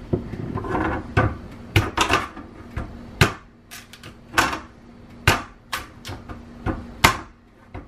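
Large kitchen knife chopping through a hard cassava (yuca) root and striking the cutting board: a series of sharp knocks, one or two a second.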